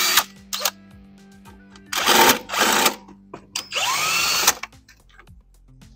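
Cordless power driver backing out small 7 mm bolts in short runs: one run ending right at the start, then two more about two seconds and three and a half seconds in, the motor's pitch rising as it spins up.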